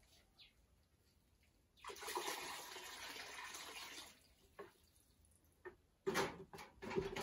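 Water poured from a small well bucket into a plastic bucket, a splashing gush lasting about two seconds. After it come a few sharp knocks and clatters as the bucket and rope are handled at the well's concrete rim.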